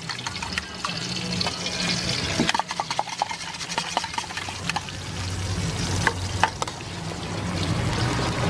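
Metal spatula clanking and scraping against a steel wok while beaten egg fries and sizzles in hot oil; the egg goes into the oil about halfway through and is then scrambled.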